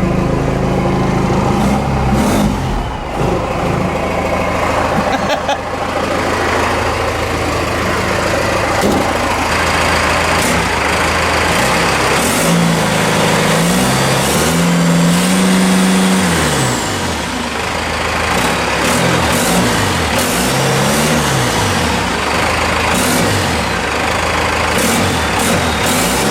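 Cummins 6BT inline-six turbo diesel running, steady at first, then revved up and down: one long rev about halfway through and a run of shorter throttle blips near the end. A faint high whistle rises and falls with the long rev.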